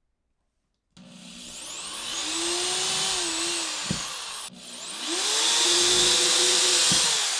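Corded electric drill boring pilot holes into a wall for wall anchors. The motor's whine rises as it spins up about a second in, breaks off briefly, then comes back in a second, louder run that tails off near the end.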